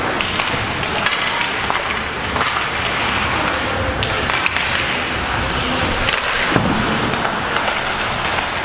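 Ice hockey play: skate blades scraping and carving across the ice, with several sharp clacks of sticks and puck, over the steady hum of the ice arena.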